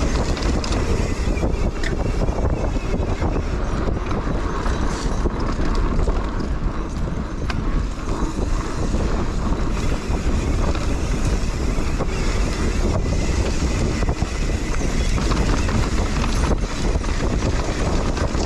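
Mountain bike riding down a dirt trail: wind rushing over the microphone together with tyre and trail noise, a steady low rush with no break.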